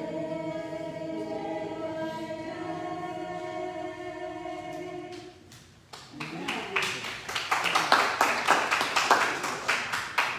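A small group of singers holds the final note of a hymn for about five seconds and then stops. About a second later a small group claps rapidly for the rest of the time, louder than the singing.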